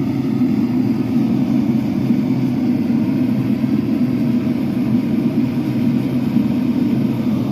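Forge running with a steady, unbroken noise, heating the knife blade for hardening before the oil quench.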